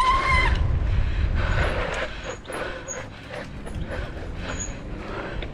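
Mountain bike rolling along a dirt singletrack: a steady low rumble of wind and tyre noise with scattered rattling clicks from the bike. A brief high squeal sounds right at the start.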